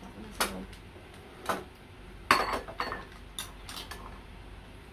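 Tableware clinking: a fork and spoon knocking against glass and ceramic bowls, about six short sharp clinks, the loudest about halfway through.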